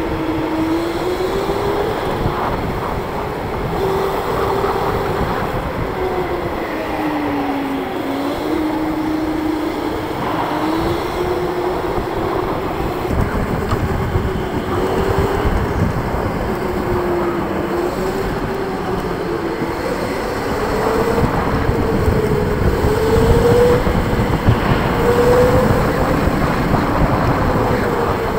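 Electric rental go-kart running at speed. The high whine of its motor rises and falls with the throttle through the corners, over a steady rumble from the kart on the concrete track.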